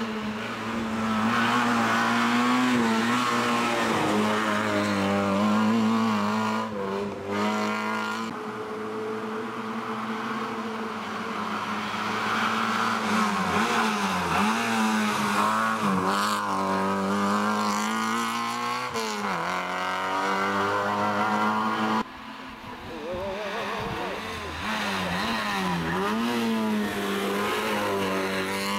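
Peugeot 106 rally car's four-cylinder engine held at high revs through hairpin bends, its pitch dipping sharply and climbing back several times as the throttle is lifted and reapplied. About three-quarters of the way through the loudness drops suddenly, then builds again as the engine revs back up.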